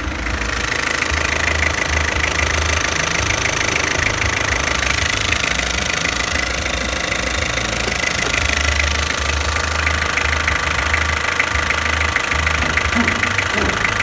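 Peugeot 406's 2.1-litre XUD11BTE four-cylinder turbodiesel idling steadily with an even diesel clatter.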